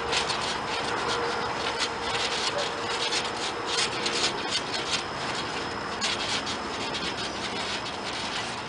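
A large dog's paws scuffing and scratching on a trampoline mat as it bounces around, in quick irregular scrapes.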